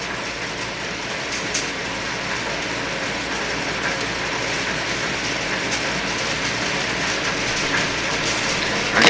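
Handheld torch lighter's flame hissing steadily as it heats heat-shrink tubing on a soldered wire joint. A few faint ticks sound over the hiss.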